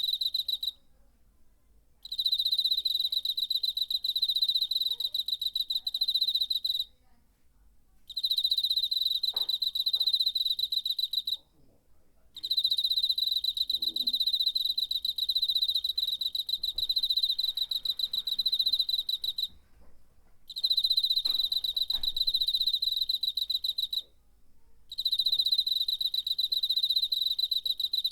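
Cricket singing by rubbing its wings: a high, rapidly pulsed trill held for several seconds at a time, broken by short pauses about five times.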